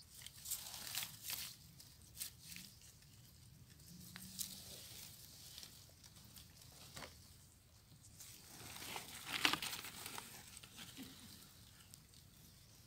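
Faint, scattered rustling and crinkling of leaves and undergrowth as mushrooms are picked by hand and laid on a leaf in a woven basket, with a louder rustle about nine seconds in.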